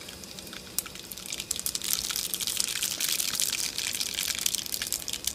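Hot cooking oil in a pan sizzling and crackling as something is dropped in, with fast sharp pops that grow louder after about a second and a half.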